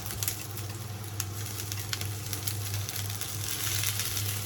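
Green peppers sizzling in a frying pan, a steady hiss with scattered small pops and crackles, over a steady low hum.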